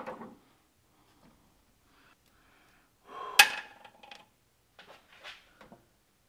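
A small metal part drops from a battery cable terminal: a sharp metallic clink with a brief ring about three seconds in, then a few lighter clinks as it comes to rest in the battery tray.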